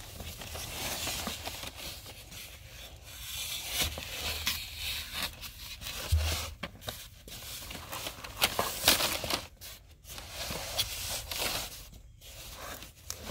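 Irregular rubbing and scraping of foam pipe insulation being handled and pulled along, with a dull bump about six seconds in.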